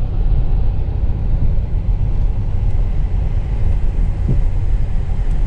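Car driving on a bumpy unpaved dirt road, heard from inside the cabin: a steady low rumble of tyres and engine.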